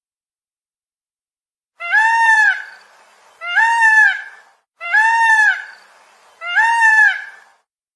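Peacock calling: four loud calls, each under a second and rising then falling in pitch, about a second and a half apart, starting about two seconds in.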